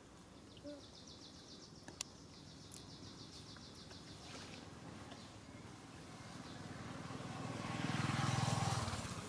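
A motor vehicle passing, its noise swelling over the last few seconds to a peak near the end and then easing off. Before it, a rapid high-pitched trill runs for about four seconds, with a sharp click about two seconds in.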